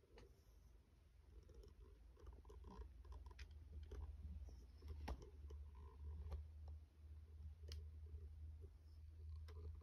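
Near silence: a faint low hum with scattered soft clicks.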